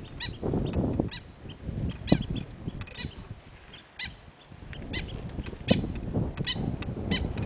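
Birds giving short, harsh, honk-like calls again and again, over an uneven low rumble.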